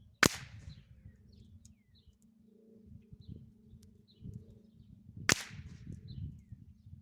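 Two .22LR rifle shots from a Ruger 10/22 Tactical, about five seconds apart, each a sharp crack with a short echoing tail. Birds chirp faintly in between.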